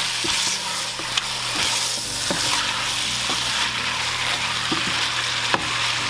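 Goat meat sizzling as it fries in a pot, with scattered short clicks and scrapes of a utensil stirring it.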